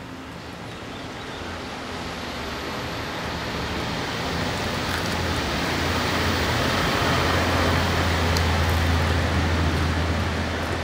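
A motor vehicle passing, its low engine hum and road noise growing steadily louder over about eight seconds and beginning to fade near the end.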